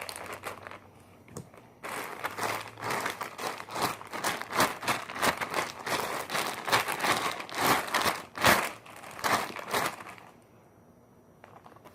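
Slime being squeezed and stretched by hand, giving a dense, irregular run of crackles and pops that starts about two seconds in and stops about ten seconds in.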